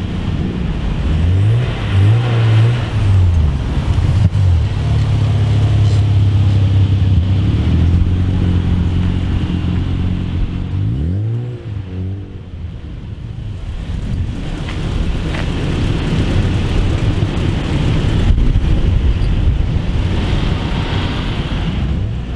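A performance car engine revved up and down a few times, then held at a steady pitch for several seconds, revved again, and then running with a rough, noisy rumble that swells and fades near the end.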